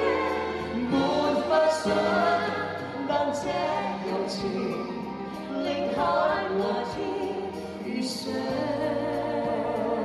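A man and a woman singing a pop duet live into microphones, backed by an orchestra.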